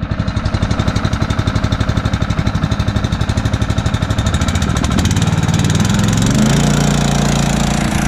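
Small OHV gasoline engine on a portable 2-inch water transfer pump, running at low speed with an even pulsing beat, then throttled up about five seconds in: its pitch rises and it settles into a steady, faster run.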